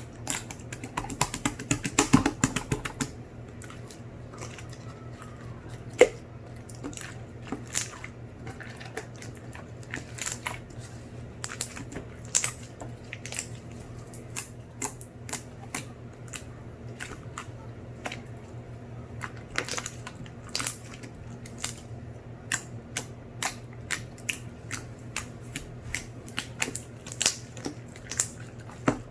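Sky-blue slime being pressed and kneaded by hand, giving a run of irregular sticky clicks and pops, several a second, densest in the first few seconds.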